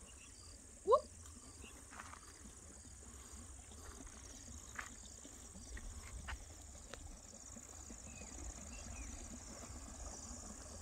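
Steady high-pitched chorus of insects in open farmland. About a second in there is one short, loud rising whistle-like call, and a few faint clicks are scattered through.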